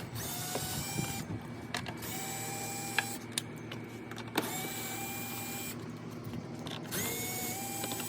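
Cordless power driver with a 7mm socket spinning out tail-light bolts: four short whirring runs, each rising in pitch as the motor spins up and then holding steady for about a second.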